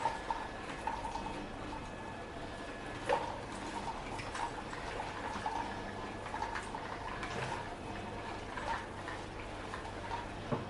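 iCub humanoid robot walking: a steady low hum and faint whining tones from its joint motors, with scattered light clicks and knocks from its footfalls and joints.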